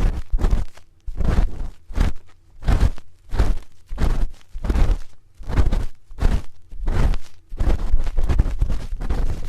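Metal spoon scraping and rubbing close against a microphone's ear, in repeated short strokes about one to two a second, each with a heavy low rumble from the contact.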